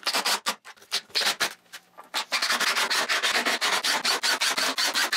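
Cordless impact driver driving screws into plywood: a few short bursts of rapid hammering, then a longer unbroken run from about two seconds in that stops just before the end.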